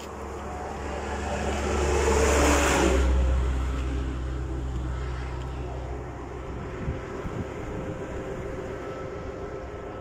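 A vehicle passing by at speed, its rumble and tyre hiss swelling to a peak about two and a half seconds in and fading away over the next few seconds, over a steady background rumble of the road.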